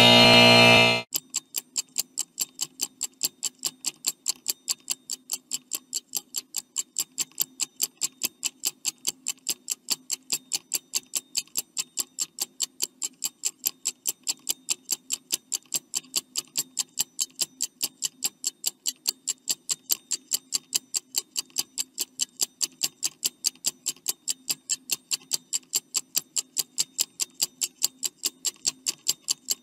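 Stopwatch ticking sound effect running a quiz countdown timer: even, rapid ticks over a faint low hum, after a short musical sting that ends about a second in.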